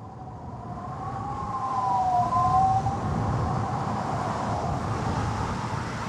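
Atmospheric opening of a Viking folk metal recording: a low rumbling noise swells up out of silence. Over it, two wavering high tones bend together and fade out about halfway through.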